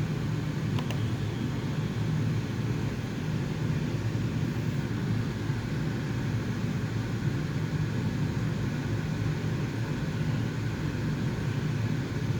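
Steady low machine hum, with several faint steady tones above it and a light click about a second in.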